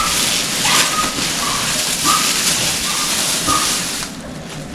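Packaging rustling and crinkling while a new microwave oven is unpacked, with several short squeaks mixed in; it eases off near the end.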